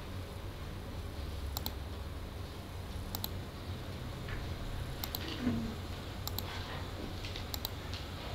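Computer mouse clicking five times, every second or two, each click a quick pair of ticks, over a low steady room hum.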